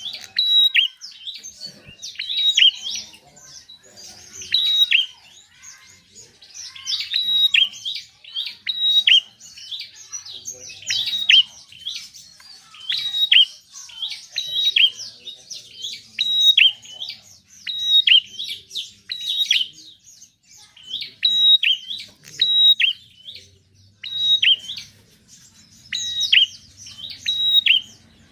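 Prinia (prenjak) singing: short, sharp, high chirping phrases repeated steadily, about one a second.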